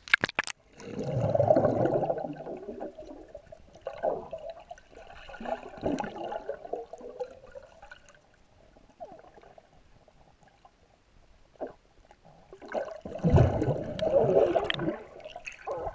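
Muffled underwater gurgling and sloshing of river water around a submerged camera, with a few sharp clicks at the very start. It swells loudly about a second in, eases off in the middle and surges again near the end.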